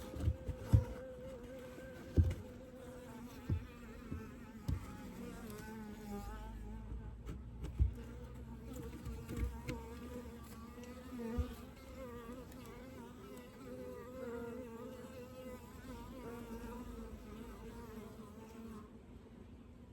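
Honeybees buzzing around an open hive, a steady wavering hum, with a few soft knocks in the first half.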